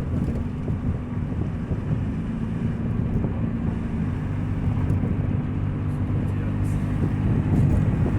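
2000 Nissan Altima's 2.4-litre four-cylinder engine running with a steady, low exhaust drone, loud because the exhaust is leaking.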